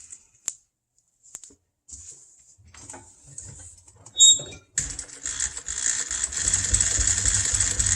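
Light handling noises and small clicks as upholstery pieces are arranged, then a sharp click, and a sewing machine starts about five seconds in and runs steadily, stitching.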